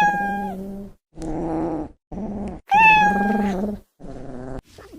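Cat growling in low drawn-out rumbles, with a high wailing yowl over the growl twice, at the start and near the middle. The calls come in five separate stretches with short silences between them.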